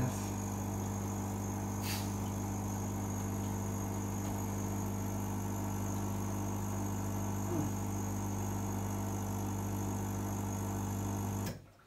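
Brumas BrauEule III brewing system's circulation pump running with water in the kettle: a steady low electric hum with higher overtones that cuts off suddenly near the end as the machine is stopped. A light click about two seconds in.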